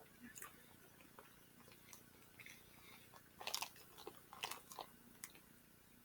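Faint close-up chewing and mouth clicks of someone eating tuna pasta salad, with the loudest short clicks about three and a half and four and a half seconds in.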